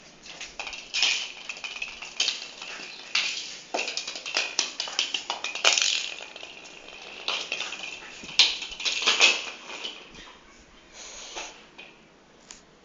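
A hollow plastic ball being batted about by a puppy, rolling and clattering on a concrete floor, with the puppy's claws scrabbling on the concrete: irregular clicks, knocks and scraping, quieter near the end.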